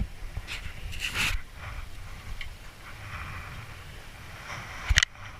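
Wind rumbling on the microphone, with a brief rushing sound about a second in and a single sharp click near the end.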